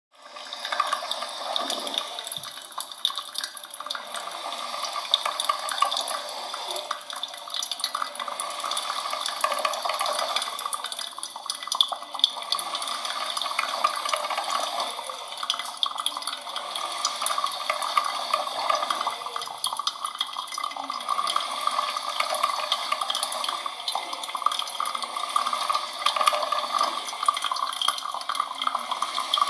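Coffee machine running: a steady sound of running water with many small ticks, fading in over the first second.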